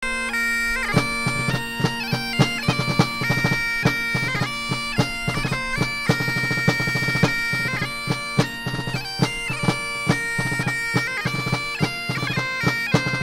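Opening theme music: a bagpipe-style melody played over a steady drone, with a regular drum beat, starting about a second in.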